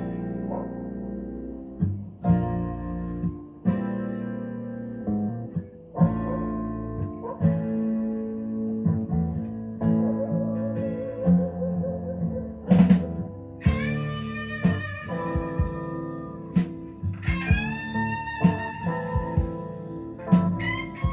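Blues guitar music playing back through a Grommes Lincoln L-24 tube stereo amplifier: plucked notes, with bent notes gliding up and down from about the middle on.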